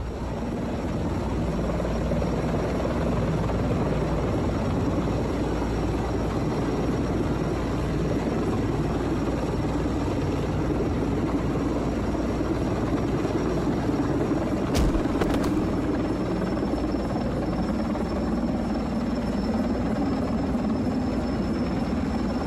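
Helicopter running steadily, its rotor and engine noise continuous, with a brief sharp knock about fifteen seconds in.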